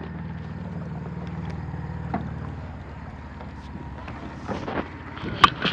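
Low steady rumble of wind on the microphone, then a few scattered knocks, the loudest near the end.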